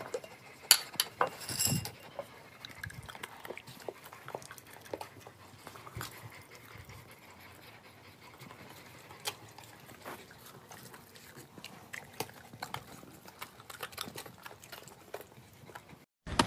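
Ceramic cookie jar lid clinking a few times in the first couple of seconds, then scattered soft clicks and taps with dogs breathing close by.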